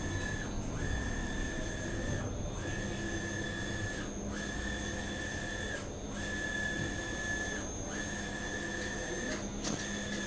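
Roland wide-format inkjet printer running a print job: a steady high whine from the print-head carriage drive that breaks off briefly about every two seconds, in an even rhythm, over a low mechanical hum.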